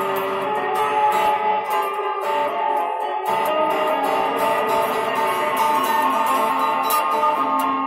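Guitar music, with notes held and ringing over one another.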